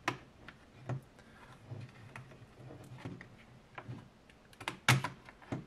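Scattered light plastic clicks and taps from an instrument cluster's plastic housing and circuit board being handled as the board is pried up past its retaining clips, with a sharper click near the end.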